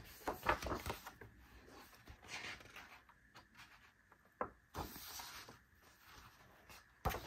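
Pages of a large, thick photobook being turned by hand: soft paper rustles with a few light taps and clicks as the pages fall.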